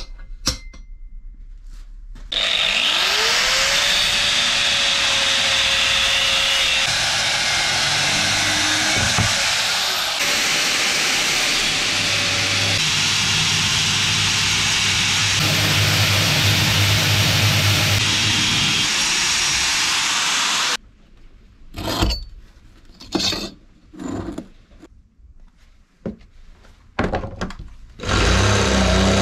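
An electric power tool starts about two seconds in, its motor whining up in pitch, then runs with a loud, harsh working noise for about eighteen seconds and stops suddenly. A string of separate knocks and clanks follows, and the loud noise starts again near the end.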